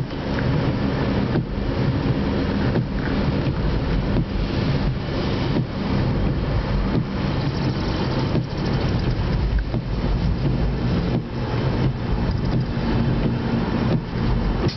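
Car interior noise while driving on a wet road: engine drone and tyre hiss, with a regular knock about every second and a half as the windscreen wipers sweep.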